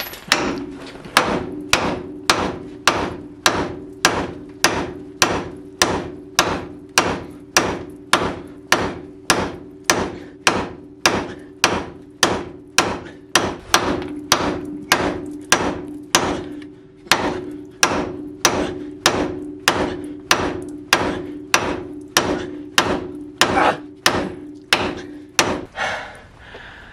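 Steady hammer blows on a steel front-suspension part, about one and a half strikes a second, with the metal ringing between blows. The ringing stops shortly before the hammering ends.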